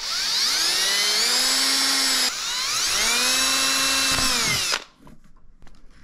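Power drill boring marker holes in the shuttle's HDPE plastic: the motor winds up in pitch and holds, cuts out briefly a little over two seconds in, winds up again, then winds down and stops near the end.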